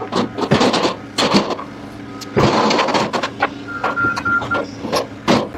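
A vehicle engine running while it is manoeuvred, with many sharp irregular knocks and clanks.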